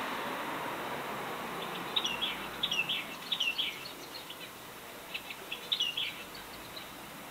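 Pet birds singing in quick bursts of short, high, down-slurred chirps about two seconds in and again around five to six seconds in, over a steady background hiss.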